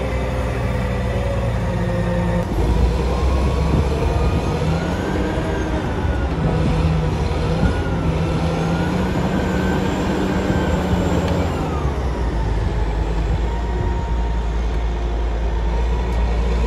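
Wheel loader's diesel engine working under load, its pitch rising and falling as the machine revs while the bucket pushes into a pile. For the first couple of seconds it is heard from inside the cab, then from outside the machine.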